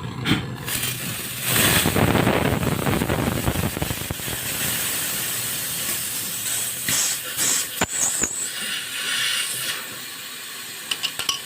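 Gas hissing out of refrigerator refrigerant tubing: a steady hiss that starts about a second and a half in, loudest at first, then eases and drops away near the end, with a few sharp clicks in the middle.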